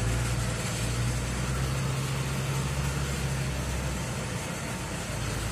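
A truck's engine idling steadily, a low even hum.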